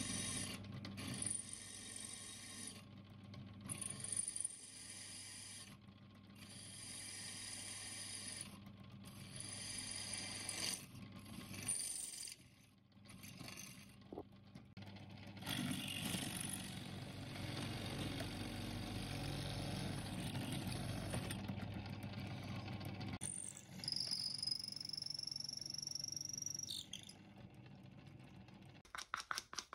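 Bench drill press motor running while its twist bit cuts a hole through the steel tang of an old cleaver, with a high-pitched squeal from the bit in spells broken off every two to three seconds as it is fed in and eased back. Near the end a high whine falls slightly in pitch and then stops.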